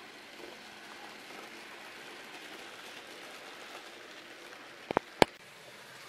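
N-scale model trains running on the layout's track, a steady faint hiss of small wheels and motor. About five seconds in comes a quick cluster of three sharp clicks.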